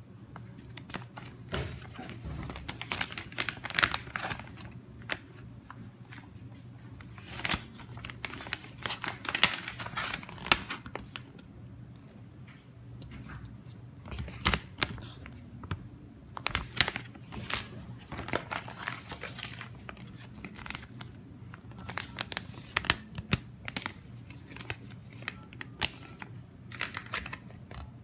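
Plastic film packaging bags, some foil-lined, crinkling and crackling irregularly as they are handled, flexed and opened. A faint steady low hum sits underneath.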